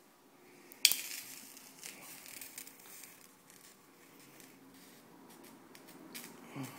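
Tongs knock sharply against a freshly cast silver bar in a bucket of ice water about a second in, followed by a couple of seconds of sloshing water and light scattered crackles.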